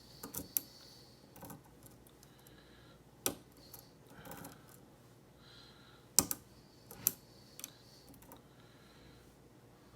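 Metal lock pick and tension bar working the pin stack of a pin-tumbler lock cylinder: scattered small ticks and clicks of pins being lifted and set, with a few sharper clicks about three, six and seven seconds in.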